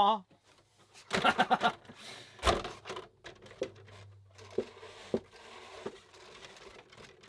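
Plastic body shell of an RC short-course truck being handled and fitted onto its chassis: a burst of rustling and clatter about a second in, a sharp knock a little later, then a few light clicks and taps as the shell is pressed down.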